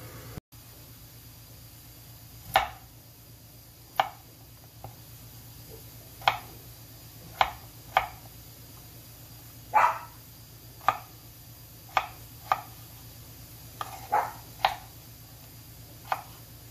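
Kitchen knife cutting through peeled raw potatoes and knocking on a wooden cutting board: a dozen or so sharp knocks at uneven intervals, starting a couple of seconds in.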